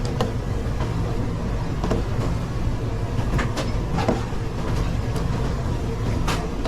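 Commercial kitchen noise during a rush: a steady low rumble with scattered short clinks and knocks of pans and utensils, several of them a second or so apart.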